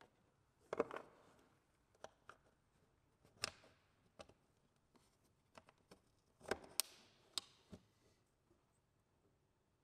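Quiet handling noises from fitting a kayak rudder's steering line onto its foot pedal: a scattering of short sharp clicks and knocks a second or so apart as the line's hook and the pedal are handled.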